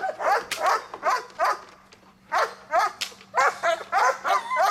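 German Shepherd barking rapidly, about four barks a second, with a short pause about two seconds in, worked up by a helper teasing it with a bite pillow in protection training.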